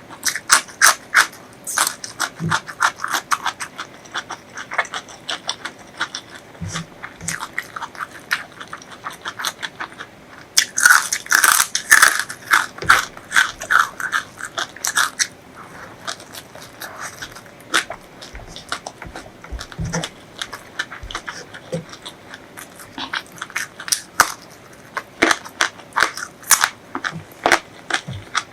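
Close-miked eating: a person chewing with many short, crisp crunches, busiest in a dense run of crunching from about eleven to fifteen seconds in.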